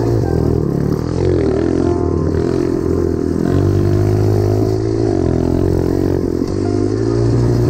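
Motorised bicycle's small engine running, its pitch rising and falling as the throttle opens and closes.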